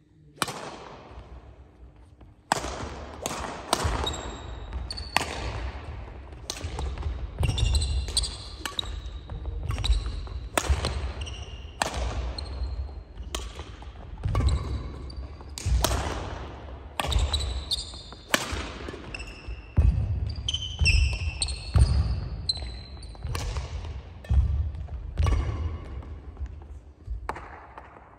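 Badminton singles rally on a wooden gym floor: sharp racket strikes on the shuttlecock about once a second, echoing in the hall, with heavy footfalls and short high shoe squeaks between them. It cuts off suddenly near the end.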